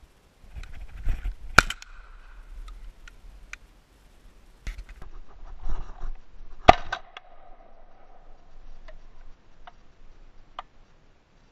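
Two shotgun shots at passing thrushes, about five seconds apart, the first a little under two seconds in, each followed by a brief ringing tone. Fainter clicks and rustling from handling the gun come in between.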